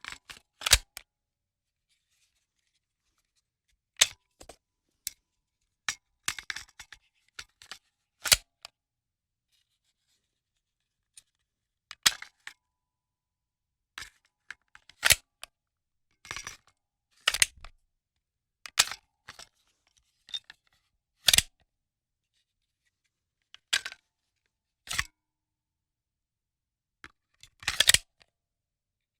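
A string of short, sharp clicks and snips, one or two at a time, spaced a second or more apart with dead silence between; a few last up to half a second, like a quick scrape or tear.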